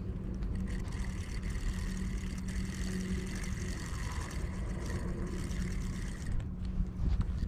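A steady low mechanical hum, like an engine running, underlies the whole stretch. Over it a spinning reel whirs as line is reeled in, and the whir stops about six seconds in.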